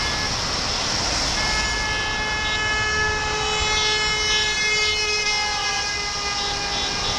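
Several car horns held down together over the hiss of traffic on a wet road, starting about a second and a half in and fading out near the end, where shorter repeated toots begin. The horns come from passing drivers greeting the protesters lining the road.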